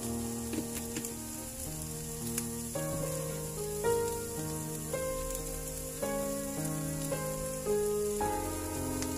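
Milkfish sisig with onions and green chili sizzling in a pan, a steady hiss, under background music: a melody of single held notes changing about once a second, which is the loudest thing.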